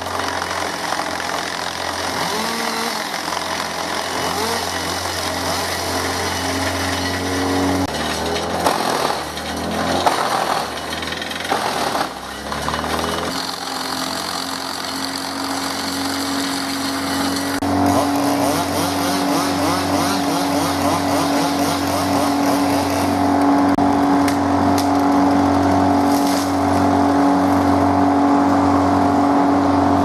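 Chainsaw running and cutting through brush, then a wood chipper's engine running with a steady drone from a little under halfway in.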